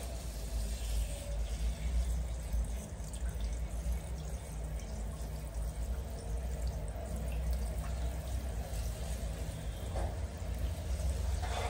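Water running steadily from a handheld shower head, spraying over a baby monkey's wet fur and splashing onto a tiled floor, over a steady low hum.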